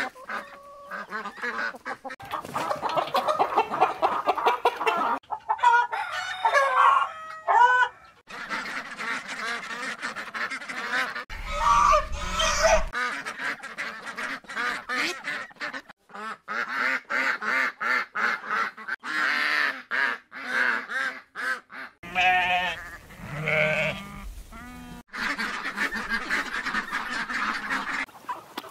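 Farm poultry calling in a run of short recordings joined by abrupt cuts: a dense mix of clucking and honking.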